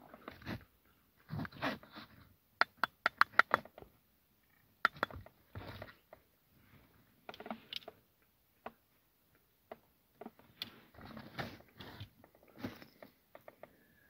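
Rustling, scraping and clicking of a rear-view camera kit being handled: cables and a wiring harness rubbing and plastic parts tapping, with a quick run of sharp clicks about three seconds in.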